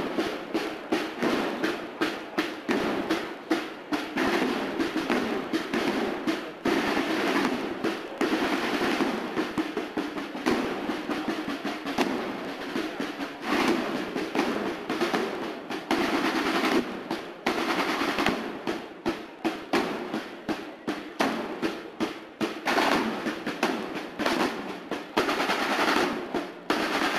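Snare drums of a Spanish cornet-and-drum band playing a fast drum passage, a dense run of rolls and strokes without the cornets.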